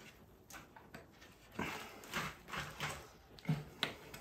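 A hex key turning in a Domino XL connector as it draws a birch stair stringer splice tight. About a second and a half in come six faint, short creaks and clicks, spaced irregularly.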